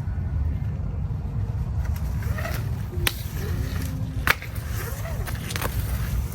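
Wet ratchet straps being thrown and worked over a silage bale on a trailer: a couple of sharp metallic clacks from the buckles, over a steady low rumble.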